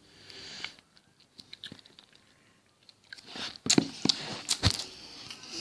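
A child eating peach yogurt from a squeezable yogurt tube: short wet mouth clicks and lip smacks, coming in a cluster from about three seconds in.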